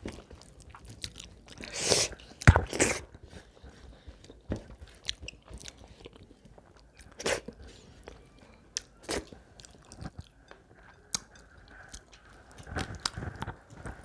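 Close-miked chewing of a meal, with many small scattered clicks and smacks and a few louder bursts about two to three seconds in.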